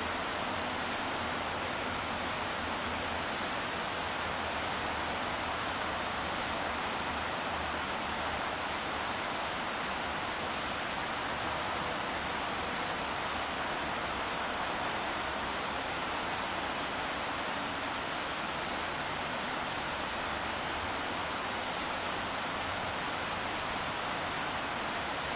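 Steady rushing of a river and its waterfalls, an even wash of water noise with no breaks.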